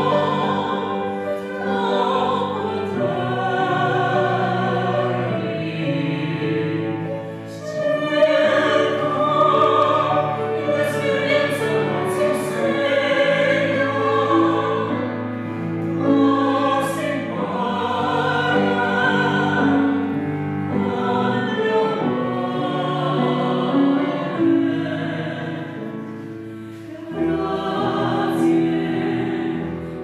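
Choral singing: several voices with vibrato sing sustained lines over held low notes, with brief breaks between phrases.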